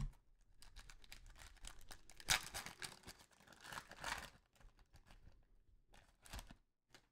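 Foil trading-card pack wrapper crinkling and tearing as it is opened, faint and irregular, loudest about two seconds in, with a few light scrapes of cards near the end.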